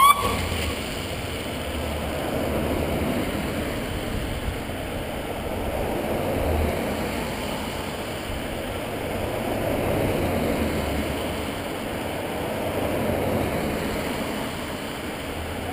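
A line of police vehicles driving past one after another: steady engine and tyre noise that swells and fades every few seconds as each one goes by. A siren's rising whoop cuts off right at the start.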